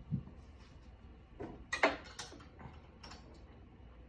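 A few short, light clicks and knocks, such as from small hard parts or a tool being handled. The loudest pair comes a little under two seconds in, after a soft low thump at the very start.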